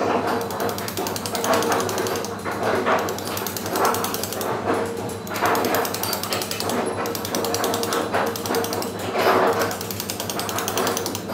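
Stone carver's dummy mallet tapping a steel chisel into sandstone: a rapid, even run of light strikes, with heavier blows every few seconds.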